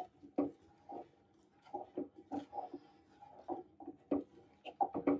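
Wooden spatula stirring coconut milk in a metal pot, knocking and scraping against the pot's sides and bottom in irregular strokes, several a second, each knock making the pot ring briefly.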